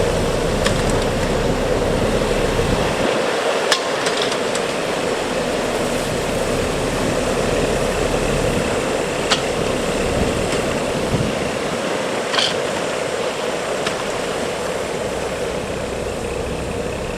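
Heavy vehicle engine running steadily, with a few short sharp knocks over it.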